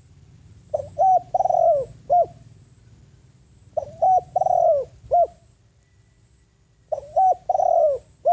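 Spotted dove cooing: three phrases about three seconds apart, each a few short coos and one longer falling coo. It is a decoy bird's call, used to lure wild doves.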